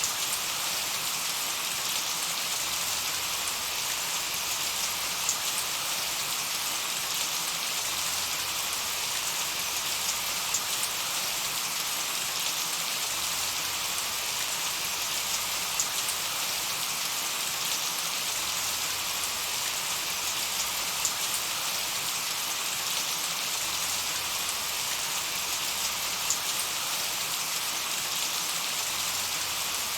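Steady light rain falling, an even hiss with scattered drop ticks.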